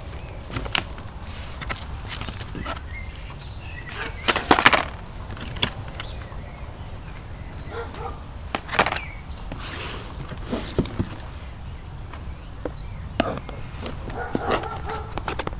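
Packaging being handled: scattered clicks, knocks and rustles over a steady low rumble, with the loudest knocks about four and a half and nine seconds in.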